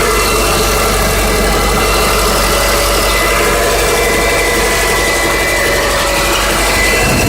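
2005 Subaru Legacy 2.0-litre flat-four (boxer) engine running steadily with a rapid, even knock. The owner cannot tell whether it is worn crankshaft bearing shells or piston slap.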